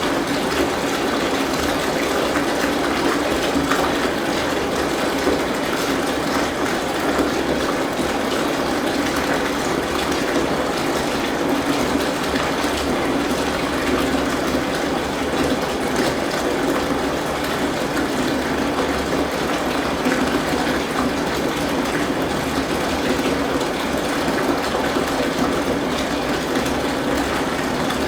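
Tap water gushing steadily into a bathtub as it fills, a continuous rushing with no breaks.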